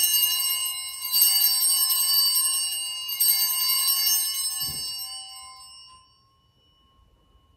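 Altar bells rung at the elevation of the consecrated host: a bright, many-toned ringing, struck again about one and three seconds in, then dying away over the next few seconds. A soft knock sounds just before the ringing fades.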